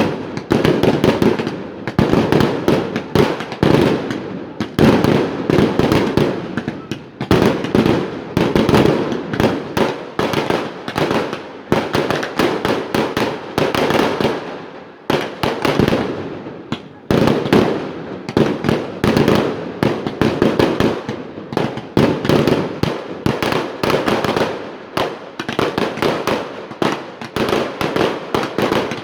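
Fireworks display: a dense, continuous barrage of bangs and crackles, easing briefly about halfway through before building again.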